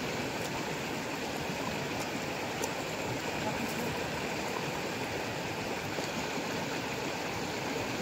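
Shallow, fast river rushing over rocks: a steady wash of flowing water.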